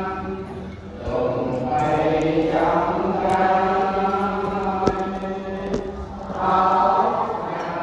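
Cambodian Buddhist chanting by a group of voices, long held tones recited together, pausing briefly about a second in and again around six seconds.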